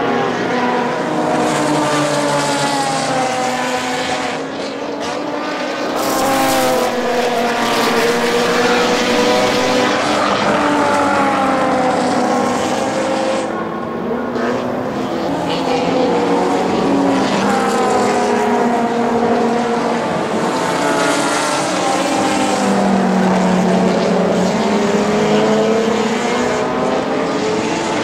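Engines of several circuit racing cars at full race pace, overlapping as they pass, their pitch rising and falling with gear changes and braking into corners.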